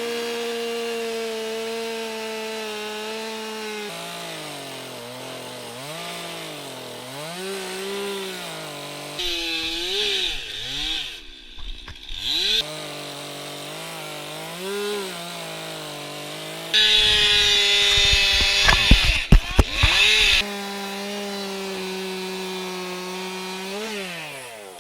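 Gas chainsaw running, its revs rising and falling repeatedly, with two louder stretches of cutting into wood, about nine seconds in and about seventeen seconds in.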